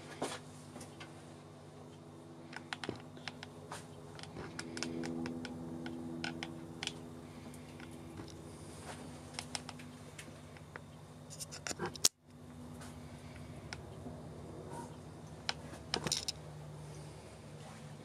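Old microwave oven giving a steady low hum, with scattered light clicks and ticks. A sharper click comes about twelve seconds in, with a brief dropout just after it.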